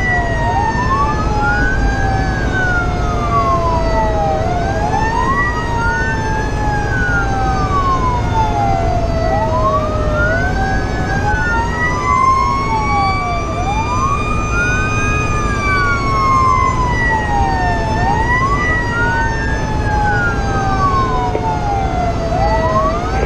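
Fire engine sirens wailing, heard from inside the cab while the truck is driving. Two siren tones sweep up and down at different rates, one in a slow long sweep and one in quicker rising-and-falling wails, over steady engine and road rumble.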